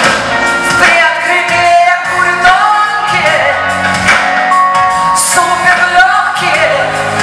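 Woman singing a pop song live into a microphone over amplified band backing with a steady drum beat.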